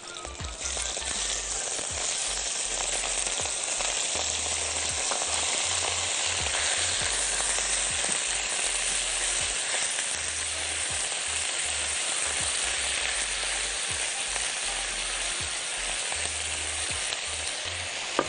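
Thin strips of raw beef sizzling steadily in a hot wok with a little oil, starting about half a second in as the meat hits the pan, with a few light taps of a silicone spatula spreading it. The meat is searing over high heat.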